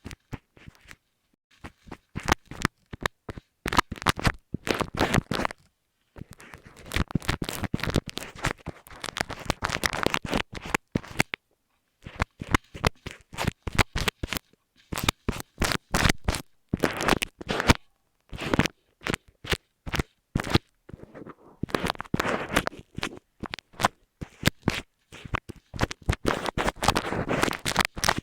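Close-miked scratching and crackling rubbed right against an earphone microphone, in dense runs of quick strokes broken by short pauses.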